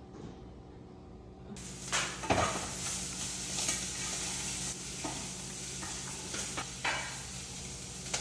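Food sizzling in a pan, a steady hiss that starts after a cut about a second and a half in, with a few sharp clinks of a utensil.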